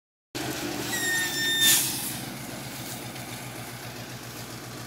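ZIL-131 army truck's V8 petrol engine running with a low throbbing hum as the six-wheeler drives through mud. About a second in, a high steady squeal lasts under a second and ends in a short loud hiss.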